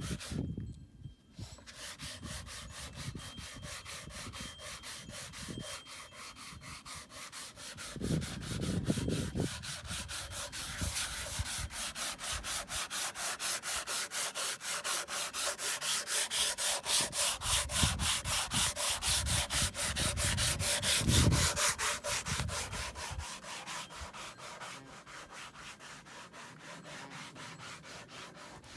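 Wood being hand-sanded with quick, even back-and-forth strokes. The strokes grow louder toward the middle and fade near the end.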